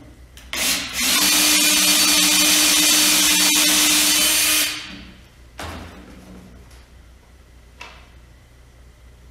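Cordless drill drilling a pilot hole for a pan head mounting screw: a short blip, then about four seconds of steady running at one pitch before it stops.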